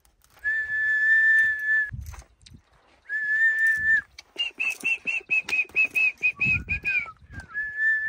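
Donkey braying: long, high, whistle-like drawn-in notes, then a fast run of rhythmic hee-haw pulses, about six a second, with some low rasp, and another long high note near the end.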